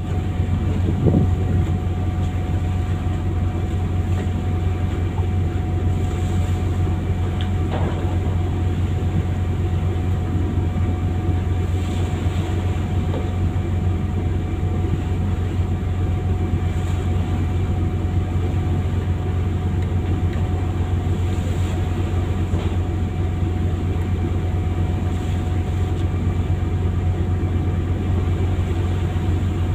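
Fishing boat's engine running steadily: a constant low drone with a few steady higher tones.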